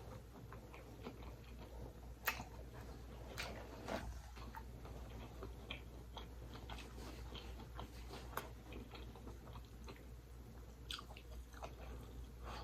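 A person chewing food, faint, with a few sharp mouth clicks scattered through it over a low steady hum.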